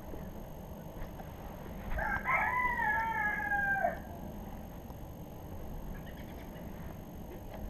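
A game rooster crowing once, a crow of about two seconds starting about two seconds in, its long final note falling away at the end.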